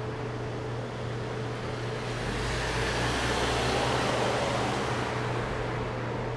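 A road vehicle passing: a broad rushing noise with a low rumble swells and fades between about two and five seconds in, over a steady hiss and low hum.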